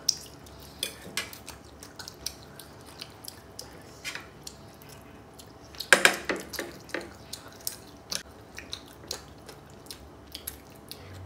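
Metal cutlery clinking and scraping against ceramic plates during a meal, in scattered light clicks, with a louder, longer noise about six seconds in.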